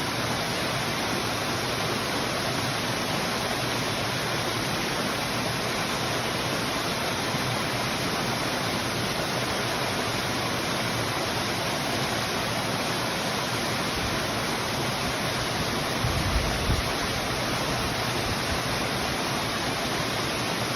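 Stream water flowing steadily, an even rushing of water without let-up. About two-thirds of the way through there is a brief low rumble.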